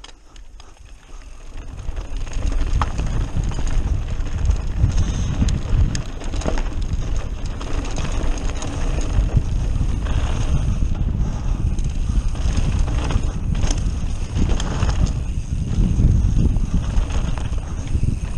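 Mountain bike riding fast down a rocky gravel singletrack: wind buffeting the microphone, tyres on loose gravel and stones, and the bike rattling with sharp clicks over the bumps. It grows louder over the first couple of seconds as speed builds.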